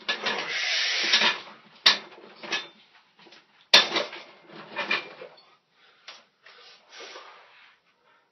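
A man straining under a loaded barbell on a bench press: a series of noisy bursts of effort, with two sharp knocks about two and four seconds in. The bursts fade out near the end.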